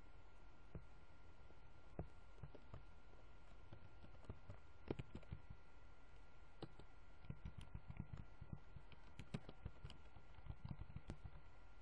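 Faint, irregular clicking of a computer mouse, with the clicks coming thicker in the second half, over a faint steady hum and thin high tone.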